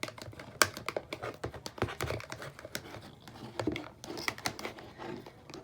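Glue and shaving cream being stirred in a container: a quick, irregular run of clicks and taps as the stirring utensil knocks and scrapes against the container.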